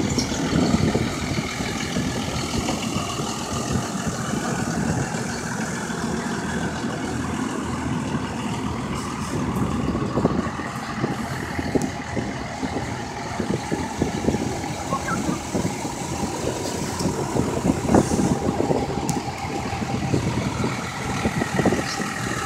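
Several pickup truck engines idling together, a steady mixed rumble.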